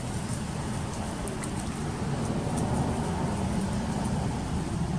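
A steady low rumble, with faint light splashes of water from monkeys moving in a basin of water.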